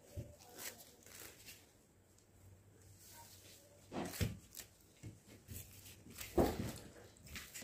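Intermittent handling noises: a few soft knocks and rubbing sounds, the loudest about six and a half seconds in, over a faint low hum.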